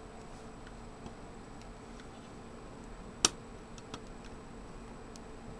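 Light clicks and ticks of fingers working the metal fan and copper heatsink assembly of a ThinkPad T60 cooling system, pressing the small copper tabs down over the fan frame. One sharp click a little past the middle is the loudest, with a few fainter ticks just after it, over a faint steady hum.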